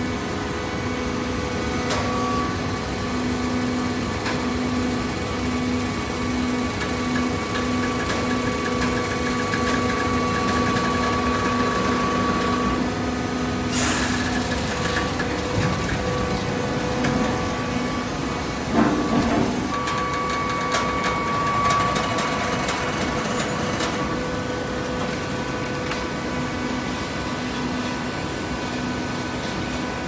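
Automatic horizontal hydraulic waste paper baler running: a steady hum from its motor and hydraulic pump with a faint even throb. A sharp click about halfway through, and a louder knock a few seconds later.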